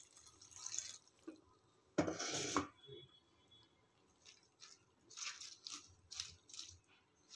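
Water poured from a steel jug onto spinach leaves in a steel bowl, tailing off about a second in, with one louder short rush about two seconds in. Then a string of short rustling, squishing sounds as a hand swishes and rubs the wet spinach leaves in the bowl.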